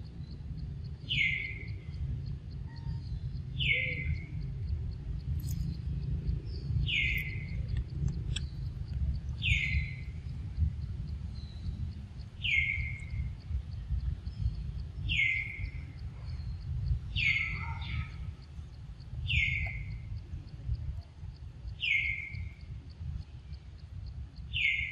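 A bird repeating one short, falling call about every two and a half seconds, over a steady low rumble.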